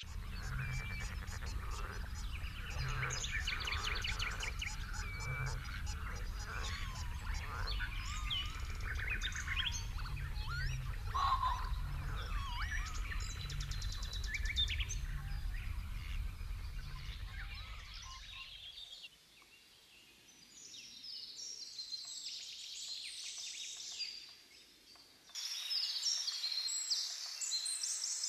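Birds calling and singing, with quick ticking trills and gliding whistles, over a low rumble that stops about two-thirds of the way through. Higher-pitched birdsong carries on after that, with two brief lulls.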